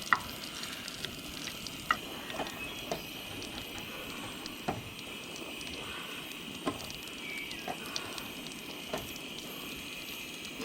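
Sausage patty sizzling and frying in a pan, a steady hiss broken by a few short clicks scattered through it.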